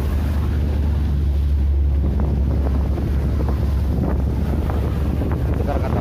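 Strong wind buffeting the microphone over a steady low drone from the boat's engine, with waves splashing against the hull in rough sea.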